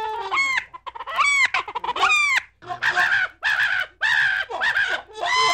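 A run of high-pitched animal calls: short cries in quick bursts, many of them dropping in pitch at the end, with one longer held call near the end.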